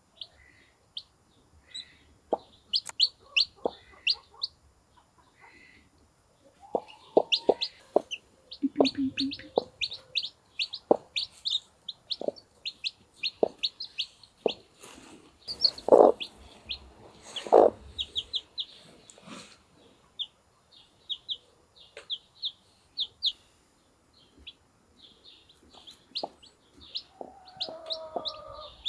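Newly hatched chicks peeping in rapid, short, high notes, with a Brahma hen clucking lower among them. Two louder low sounds come about halfway through.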